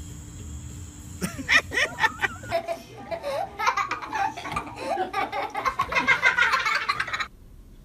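Loud laughter in repeated bursts, starting about a second in and cut off suddenly near the end.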